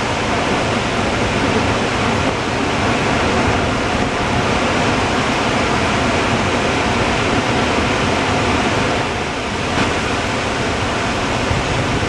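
Dam spillway discharge: water shooting from open crest gates and falling down the concrete face, a loud, steady rush of falling water.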